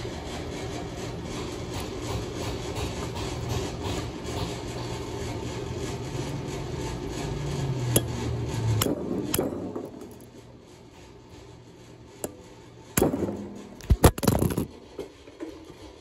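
Hammer striking a socket set on a valve spring retainer of a cylinder head, a handful of sharp metal knocks that bunch together near the end, to knock the valve keepers loose so the spring can come off. A steady low hum runs underneath and fades out about ten seconds in.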